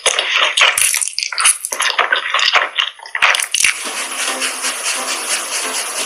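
Crunchy, crackly eating and clinking sounds from a mukbang video, in irregular bursts. About four seconds in they give way to a steady hiss.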